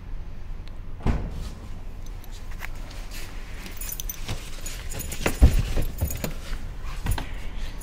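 Luggage being loaded into the open boot of a Suzuki car: clicks and rustling handling noise, keys jingling, and a heavy thump about five and a half seconds in.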